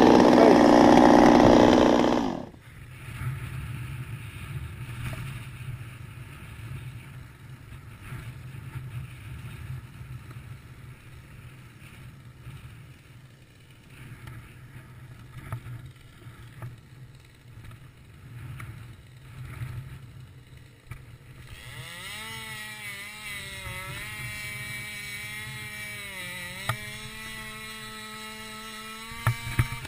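Stihl 200T top-handle chainsaw running at full throttle close up, cutting off sharply about two seconds in. A low rumble follows. From about 22 s a chainsaw runs again at high revs, farther off, its pitch dipping a few times as it cuts.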